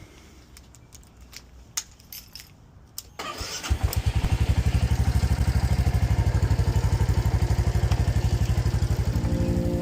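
Royal Enfield Meteor 350's single-cylinder engine being started: a few faint clicks, then the electric starter cranks about three seconds in. The engine catches half a second later and idles with a steady, even thump.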